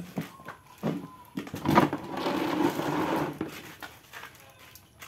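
Small clear plastic bags crinkling and rustling as they are handled and filled with water and fish, with a few sharp knocks; the rustling is loudest about two to three and a half seconds in.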